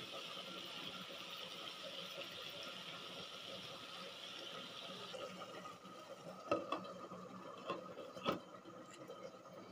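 Tomatoes sizzling in a steel kadai, a faint steady hiss that drops away about five seconds in. It is followed by three sharp clinks as a glass lid is set on the pan.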